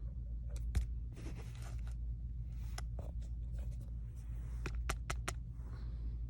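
Light clicks and faint scrapes of a handheld plastic power bank being turned over and handled, over a steady low background hum.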